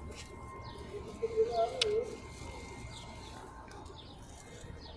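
A dove cooing: one short, wavering coo a little over a second in.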